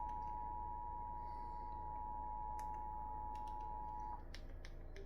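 Emergency Alert System two-tone attention signal, held steady and cutting off about four seconds in, followed by a few faint clicks over a low hum before the voice message.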